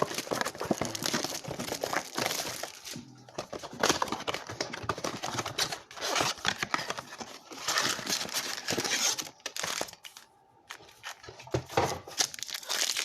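Plastic trading-card pack wrappers crinkling and tearing open in irregular bursts, with brief lulls about three seconds in and again near ten seconds.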